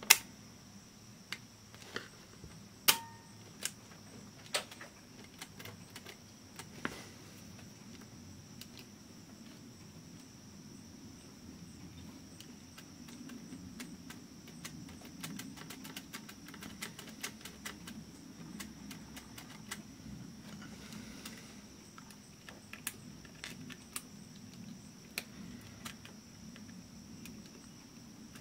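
Sharp clicks and light taps of a small screwdriver and fingers on the open cassette player's metal mechanism and switches. Several distinct clicks come in the first seven seconds, then a run of faint ticks over a low hum.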